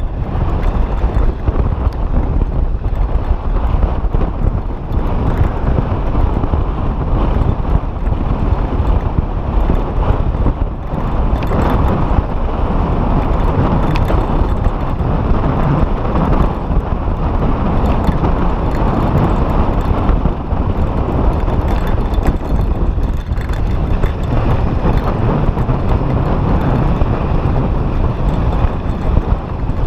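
Mountain bike rolling fast down a dirt and gravel trail: a steady rush of wind buffeting the microphone, mixed with tyre rumble on the loose surface and small rattles from the bike.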